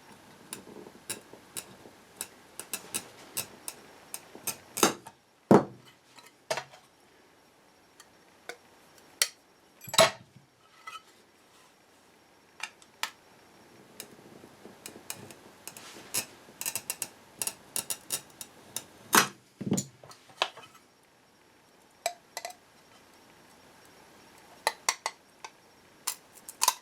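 Hard parts being handled and test-fitted: a scattered run of light clicks and taps with several louder knocks, as pieces are set against each other and put down.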